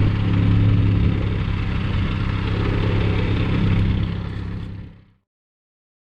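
Off-road vehicle engine running, a steady low drone that fades out about four and a half seconds in and stops in silence.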